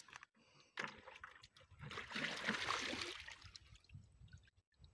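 Plastic bucket bailing water from a shallow muddy puddle: water splashing and sloshing, with a few small splashes early on and the loudest splashing for about a second from two seconds in.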